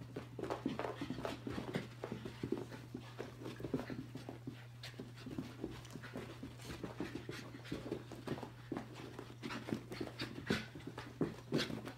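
Shiba Inu panting and scrambling about in a burst of zoomies, its paws thudding and scuffing on carpet in quick, irregular taps. A steady low hum runs underneath.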